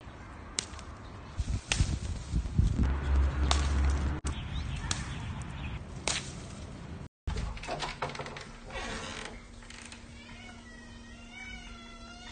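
Rustling and handling noise with several sharp clicks, then near the end a kitten mewing in a run of short, high, wavering calls.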